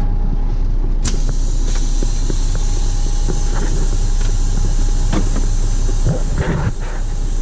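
Semi truck's diesel engine idling steadily, heard from inside the cab. There is a sharp click about a second in, followed by a steady hiss.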